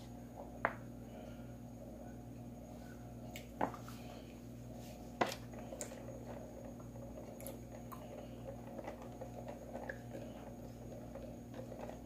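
Faint close-up chewing of bubble-tea tapioca pearls over a steady low hum, with three sharp clicks in the first half.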